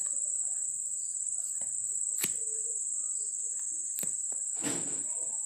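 A steady high-pitched whine runs throughout, like a continuous insect trill or an electrical whine. A few faint clicks and a brief rustle near the end sound under it.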